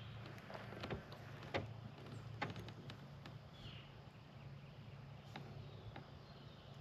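A few faint knocks and clicks of a caught bass and tackle being handled in a plastic kayak, over a steady low hum.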